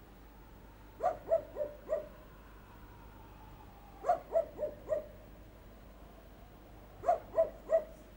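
A dog barking in short runs of three or four barks, about every three seconds.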